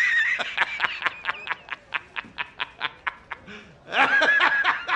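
A man laughing hard in a loud, high, wheezing squeal that breaks into a rapid, even 'ha-ha-ha' of about six pulses a second, then rises into another squeal about four seconds in.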